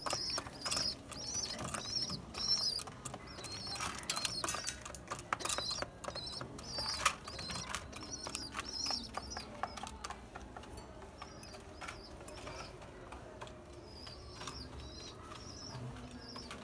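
Pigeons pecking grain from terracotta feeding pots, their beaks clicking sharply and irregularly against grain and clay. Short high chirps about twice a second from another bird, fading after about ten seconds and returning fainter near the end.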